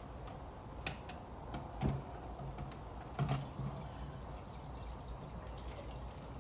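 A handful of light clicks and knocks from small parts being handled, the loudest about three seconds in, over a steady low hum.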